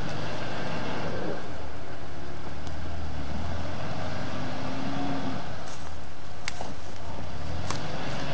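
UAZ off-roader's engine running as it crawls through forest mud, its note swelling and easing several times with the throttle. A few sharp clicks come through over it.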